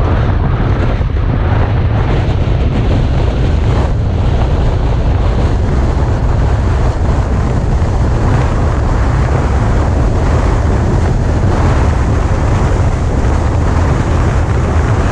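Hurricane Michael's winds blowing hard across the microphone: a loud, continuous rush with a deep buffeting rumble that does not let up.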